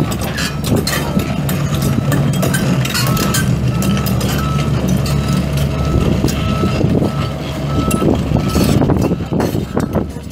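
Komatsu PC228USLC-3 excavator's six-cylinder turbo diesel running, with its alarm giving an evenly repeating single-pitch beep that stops about eight seconds in. Scattered metallic clanks and knocks sound over the engine.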